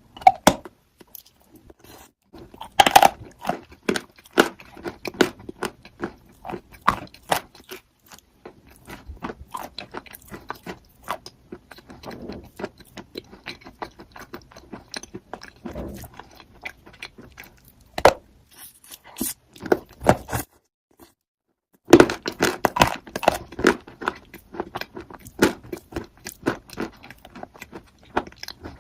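Crunchy chalk being bitten and chewed: a long run of sharp crunches and chewing. There is a brief silent break about two-thirds through, then a dense run of crunching.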